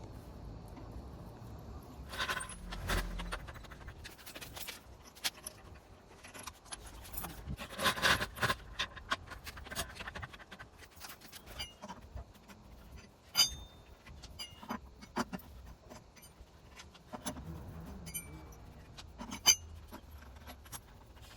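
Scattered metallic clinks, clicks and light scrapes of small metal tools and parts being handled, coming irregularly with a few sharper knocks.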